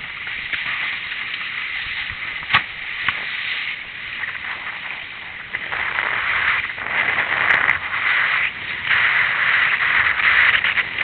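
Wind and water rushing past a windsurfer sailing a Tabou Rocket board under a 5.9 sail. The steady hiss dips for a while, then swells louder in the second half, with two sharp knocks about a quarter of the way in.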